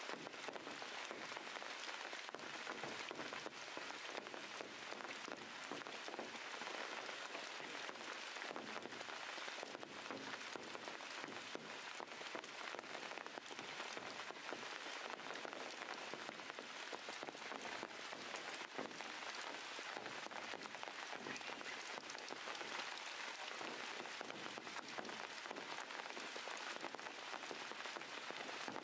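Steady rain falling: an even hiss of many fine drop impacts that neither builds nor fades.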